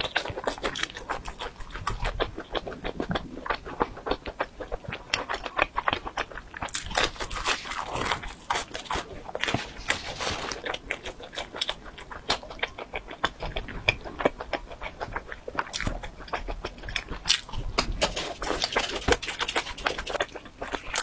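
Close-miked chewing of pizza: crisp crust crunching and wet mouth sounds, a dense run of small irregular clicks and crackles.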